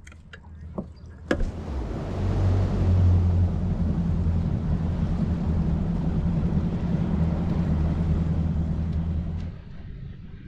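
Caymas CX20 bass boat running under outboard power: a steady low engine hum with wind and water rushing past. It dies down about nine and a half seconds in.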